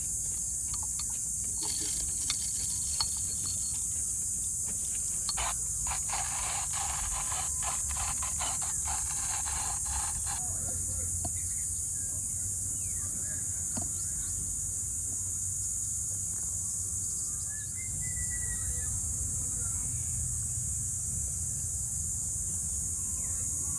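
Steady high-pitched insect chorus with a low rumble beneath it, and a stretch of rustling and clicking from about five to ten seconds in.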